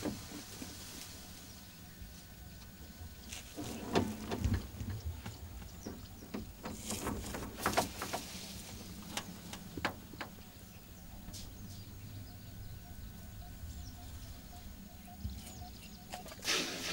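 Asian elephant at close range beside a safari jeep: scattered knocks and rustles as it moves against and around the vehicle, over a steady low hum.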